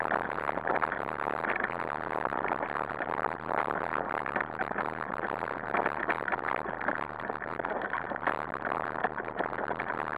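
Continuous rattling and rumbling of a dog-pulled wheeled rig running fast over a rough forest dirt trail, with its frame and the camera mount shaking.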